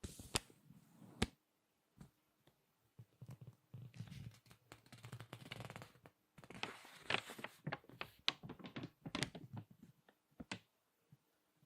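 Crinkly magazine pages being turned and squeezed by hand: sharp paper crackles and rustling in spells with short pauses between, busiest through the middle.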